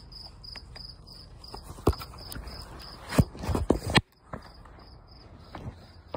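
Cricket chirping steadily at about three chirps a second, with a few sharp knocks and thumps about two to four seconds in.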